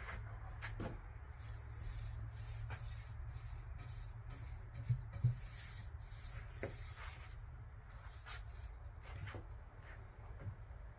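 Hand sanding: irregular rubbing strokes of abrasive paper over a low steady hum, with two short thumps about five seconds in.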